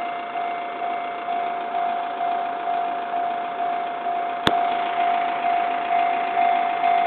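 Japanese railway level-crossing warning bell ringing steadily at about two strokes a second, each stroke fading before the next, while the crossing is closed for a train. A single sharp click about four and a half seconds in.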